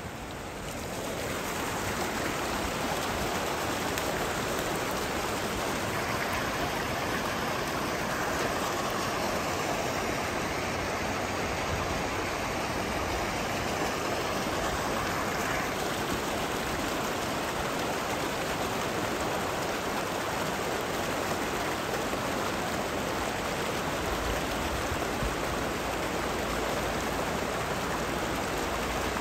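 A shallow, rocky river running fast over boulders: a steady rush of water that swells up over the first second or two and then holds level.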